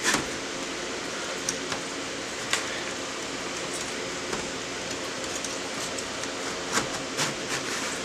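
Light metal clicks and taps, scattered a few seconds apart, as a graphics card and the aluminium case's metal brackets are handled during fitting, over a steady background hiss.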